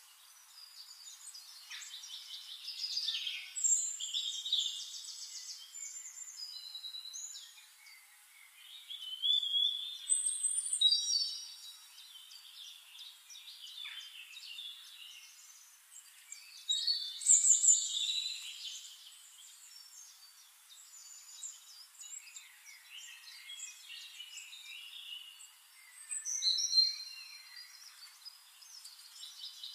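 A chorus of small songbirds chirping, trilling and warbling over one another, with nothing in the lower range, so no pan or stirring sounds come through. Louder bursts of song come about 3–4, 10, 17 and 27 seconds in.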